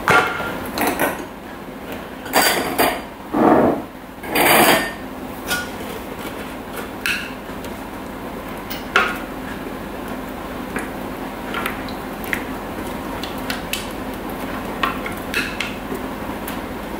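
Spatula scraping and knocking against a stainless-steel Thermomix mixing bowl as thick jam is scraped out into jars through a funnel. A run of louder scrapes and clunks comes in the first five seconds, then only occasional light clicks.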